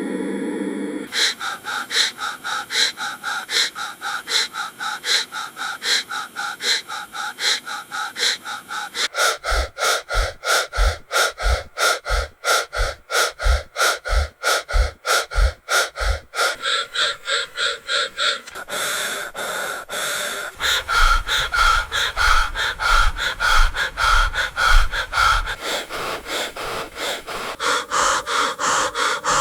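Anesthesia machine breathing loop cycling in a fast, even rhythm of short breath-like puffs, about two a second. For a stretch in the middle a low thump comes with each puff, and later a low rumble runs under the puffs.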